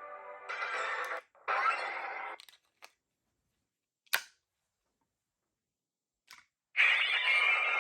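Toy SparkLence transformation device playing short electronic sound-effect bursts, with sharp clicks between them, then starting a longer, louder effect near the end.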